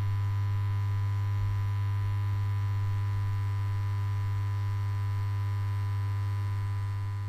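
Neon-sign hum sound effect: a steady low electrical hum with a faint higher whine above it, tapering off near the end.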